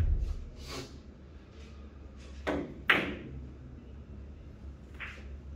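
Billiards shot: the cue strikes the ball at the start with a dull knock, then balls click sharply against each other twice in quick succession about two and a half to three seconds in, and once more, fainter, about five seconds in.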